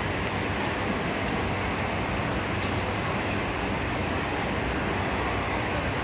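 Steady, even background din of a busy wet-market hall, with no single distinct sound standing out.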